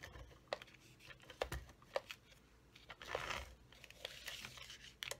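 Stampin' Seal tape-runner adhesive being run along a piece of cardstock: faint clicks and scrapes, with a short rasping stretch about three seconds in.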